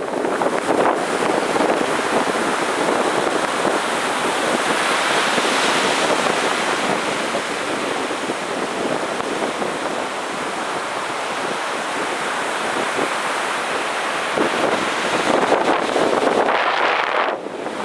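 Heavy ocean surf breaking and washing on a beach in a steady rush, with wind on the microphone.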